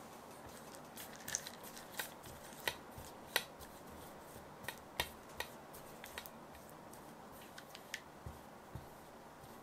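Silicone spatula stirring melting dark chocolate in a glass bowl: irregular light clicks and taps of the spatula and chocolate pieces against the glass.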